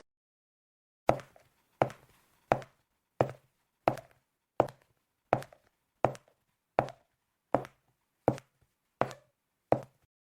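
A series of about thirteen sharp, evenly spaced knocks or chops, roughly one every three-quarters of a second. They start about a second in, each strike dying away quickly, with silence between them.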